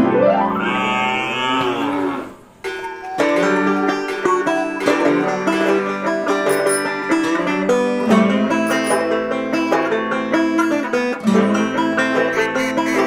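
A cow moos once, a long call that rises in pitch and then holds. About three seconds in, plucked-string instrumental music with a steady beat starts and carries on.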